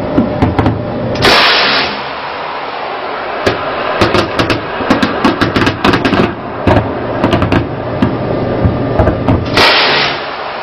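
Ship's turret deck gun firing rapid shots in quick runs over a steady background of wind and sea noise, with two short, louder blasts of noise about a second in and near the end.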